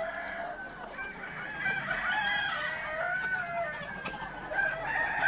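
A large flock of roosters crowing over one another, many calls overlapping at once, with clucking among them.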